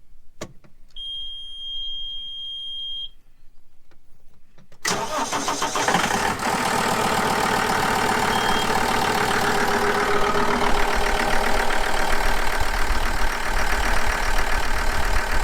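One steady high-pitched warning beep lasting about two seconds, then about five seconds in the diesel tractor engine is started and runs steadily, freshly serviced with new oil and a new fuel filter.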